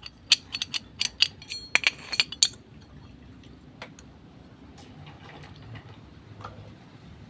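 Suzuki Shogun SP125 clutch plates clinking against each other in the hand, a quick run of sharp metallic clinks during the first two and a half seconds, then only faint handling noise.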